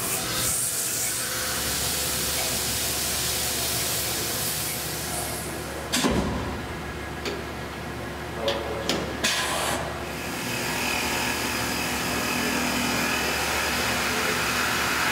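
CNC mill running with a steady hiss of mist coolant while drilling. About six seconds in it stops for a manual tool change: a sharp knock, then several clicks of the tool holder. About ten seconds in, the spindle and coolant hiss start again.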